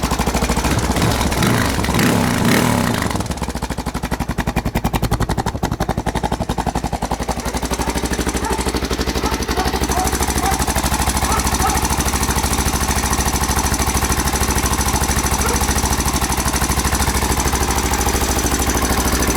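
1992 Honda XR600R single-cylinder four-stroke engine idling with a rattling, knocking clatter, which the owner takes for timing (cam) chain noise. It runs a little higher and louder for about the first three seconds, then settles to a steady idle.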